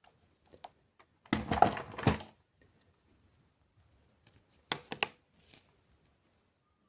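Handling noise from a cable and plastic parts being picked over by hand: a rustling clatter lasting about a second, then a quick group of sharp clicks near the end.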